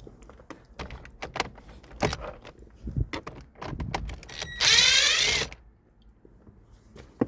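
Small clicks and knocks of tools and plastic trim being handled, then about halfway through a short burst of a cordless screwdriver's motor whirring, its pitch wavering, as it backs out a small Phillips screw from the steering column cover.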